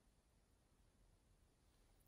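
Near silence: faint steady room tone.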